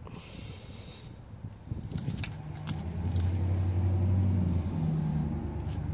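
Low, steady hum of a motor vehicle engine that swells about halfway through and drops slightly in pitch near the end. A soft hiss and a few light clicks come before it.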